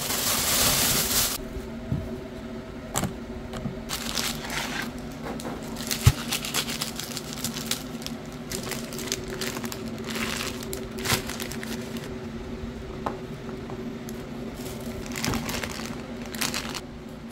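Plastic bags crinkling and rustling as groceries are handled, with scattered clicks and one sharp knock about six seconds in, over a steady low hum.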